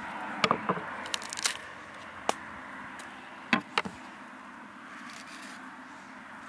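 Knife scoring and prying open a pomegranate, the tough rind cracking and the blade scraping. A cluster of short cracks and scrapes comes in the first second and a half, and two louder cracks about three and a half seconds in.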